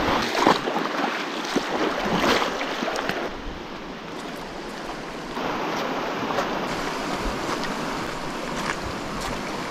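Shallow, fast-flowing river water rushing over a stony bed, loudest in the first few seconds, with a few footsteps crunching on gravel.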